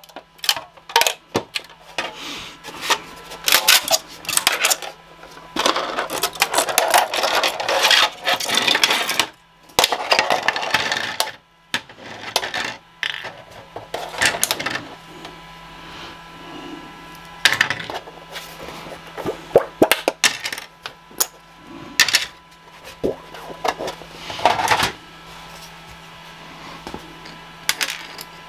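Freshly 3D-printed plastic parts being taken off a printer's flexible build plate and set down on a bench with repeated clattering clicks and knocks. A plastic scraper rasps across the plate to clear leftover bits.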